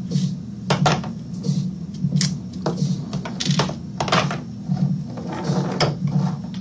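Small metal clicks and taps as hex drivers and tiny screws are handled and set down on a wooden bench while screws are taken out of an RC crawler chassis. Background music with a steady low beat, about two pulses a second, runs underneath.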